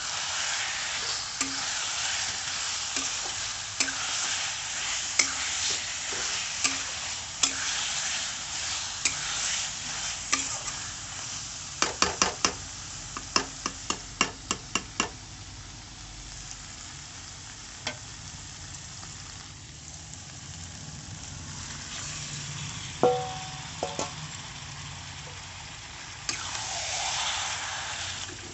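Food sizzling as it fries in a pan while being stirred, with a spoon or spatula clicking and scraping against the pan; a quick run of sharp clicks comes about halfway through, and a brief ringing clink a few seconds later.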